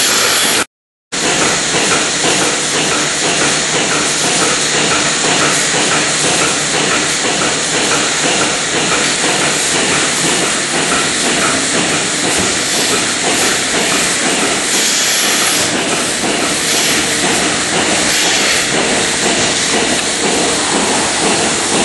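Milking parlour machinery running: a loud, steady hiss with a faint, regular pulsing, typical of a milking machine's vacuum line and pulsators at work. It breaks off briefly about a second in, then carries on unchanged.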